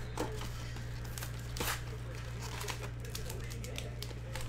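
A box of cellophane-wrapped trading card packs being opened and handled: scattered clicks and crinkles of cardboard and wrapper over a steady low hum.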